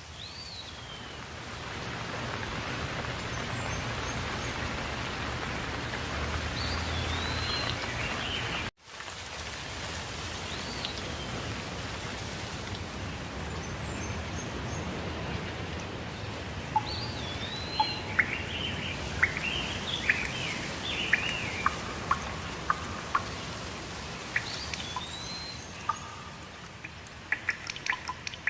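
Steady rain with heavy drips, and a bird calling a short whistled note that rises then falls every few seconds. From past halfway on, sharp drops land loudly and often. The sound cuts out briefly about a third of the way in.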